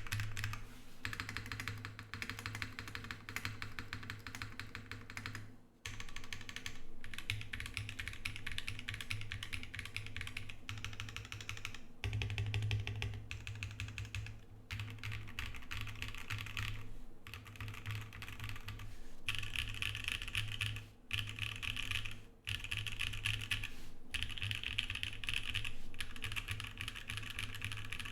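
Continuous fast typing on an Emery 65 mechanical keyboard with lubed JWK Prevail Nebula switches on an XPC plate and GMK keycaps: a dense stream of key clacks, broken by brief pauses a few times.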